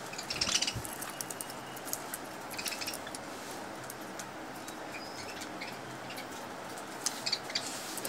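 Budgerigars chirping in short scattered bursts of high chatter, with a few clusters: about half a second in, again around two and a half seconds, and near the end.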